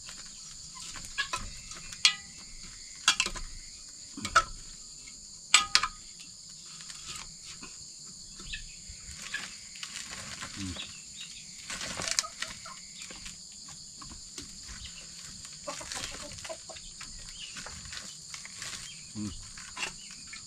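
Steady high insect chirring, with a few sharp knocks and clatters in the first six seconds and another around twelve seconds in.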